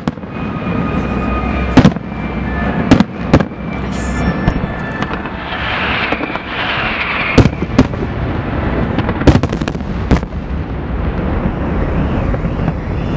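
Fireworks going off: about eight sharp bangs at irregular intervals over a continuous din of distant bursts, with a stretch of crackling about halfway through.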